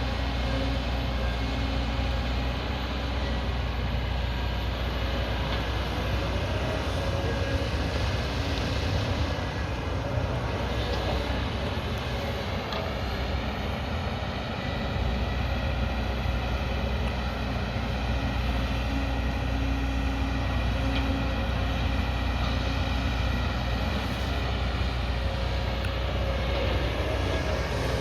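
Diesel engine of a 22-tonne-class hydraulic excavator running steadily under load while digging, with a whine that rises and falls in pitch now and then.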